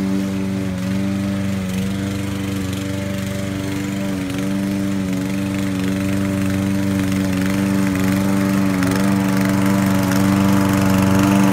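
Toro walk-behind gasoline lawn mower running steadily while being pushed across grass, its engine getting gradually louder toward the end as it comes closer.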